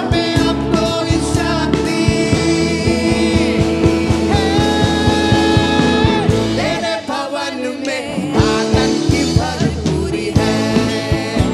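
Worship band music with singing: drums, bass and sustained melody lines over a steady beat. The bass and drums drop out briefly about seven seconds in, then come back.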